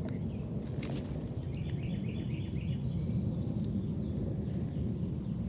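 Evening outdoor ambience: insects drone steadily and high, and a quick run of about six chirps comes roughly two seconds in. Underneath is a low rumble of handling noise on the phone's microphone, with a single click about a second in.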